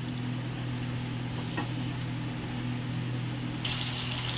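A steady low hum with a faint hiss under it; about three and a half seconds in, a sharper hiss cuts in: tilapia steaks sizzling in hot oil in a frying pan.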